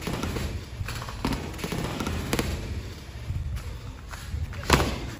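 Boxing gloves smacking as punches land in sparring: four sharp hits, the loudest near the end, over a steady low rumble.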